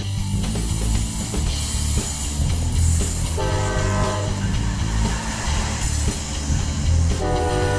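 Amtrak Genesis diesel locomotive's horn sounding a short blast about three and a half seconds in and another starting near the end, over the low rumble of the passing train. Background music runs underneath.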